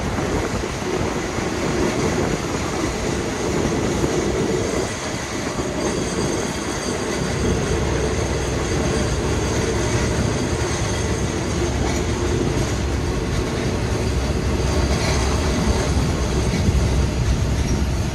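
Train running on the rails: steady rolling wheel noise with a faint high-pitched wheel squeal. The low rumble grows heavier about seven seconds in.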